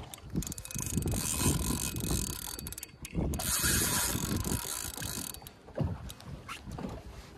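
Fishing reel clicking and whirring as a large jack crevalle is fought on the line.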